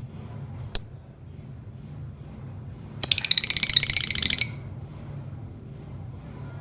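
Lovebird giving one sharp chirp, then a rapid run of high ticks lasting about a second and a half: its 'ngetik' typewriter-like chatter, which the bird is still learning.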